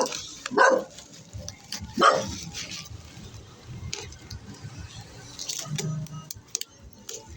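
A dog barking twice, once about half a second in and again about two seconds in, each bark short; after that only faint scattered clicks.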